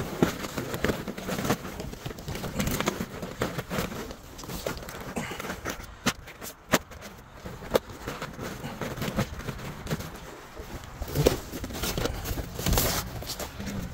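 Rustling and shuffling of paper and plastic as spiral notebooks, folders and a woven plastic bag are handled and shifted, with scattered clicks and light knocks; a few sharper clicks come about halfway through.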